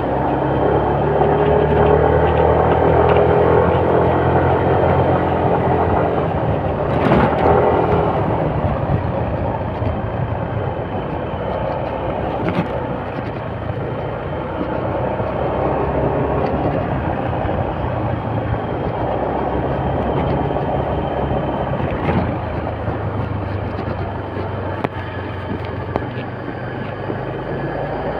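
Motorcycle engine running steadily under heavy wind and road rush while riding, with a few sharp knocks from the road.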